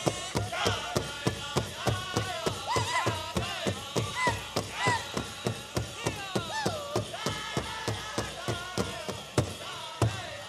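Powwow drum group singing a chicken dance contest song: a big drum struck in a steady, even beat of about three strikes a second under high-pitched group singing.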